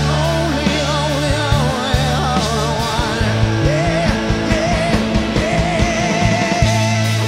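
Rock band playing live: sung vocals holding notes with vibrato over electric bass, drums and guitars.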